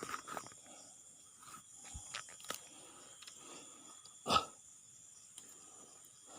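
Night insects keep up a steady high buzzing, with scattered light knocks and one louder short rustle or thump about four seconds in.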